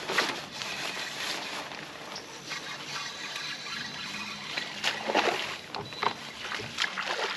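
Water splashing and sloshing around a small boat, with a sudden rise at the start and several sharper splashes about five to seven seconds in.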